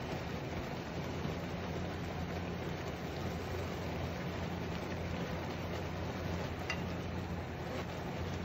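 Instant yakisoba noodles simmering in a little water in a frying pan, a steady bubbling hiss, with long wooden chopsticks stirring through them. There is one light click of the chopsticks against the pan about seven seconds in, and a steady low hum runs underneath.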